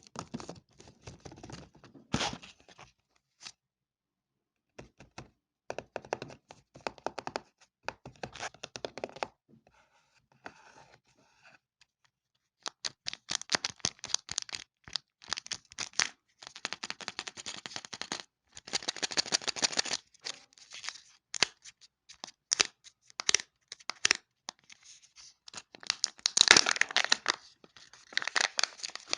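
Plastic toy packaging being torn open and crinkled by hand, in bursts of crackling and clicking separated by short pauses.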